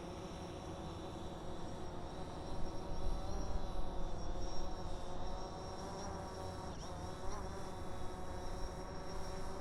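DJI quadcopter drone's propellers and motors whirring with a steady multi-tone whine, dipping briefly in pitch about seven seconds in.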